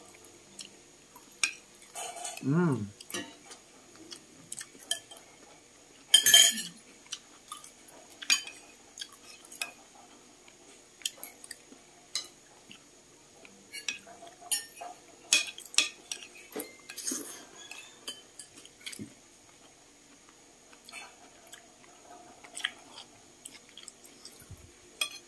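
Spoons clinking against bowls and a metal pot during a meal, as scattered light clicks and taps with a louder clatter about six seconds in. A short murmur of voice comes about two and a half seconds in.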